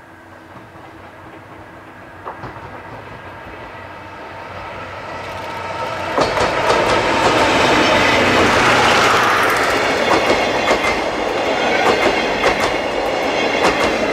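An electric-locomotive-hauled passenger train (Chichibu Railway Deki 201 leading 12-series coaches, Deki 104 at the rear) approaching and passing close by. Its rumble grows over the first six seconds, then the wheels clack steadily over the rail joints as the coaches go past.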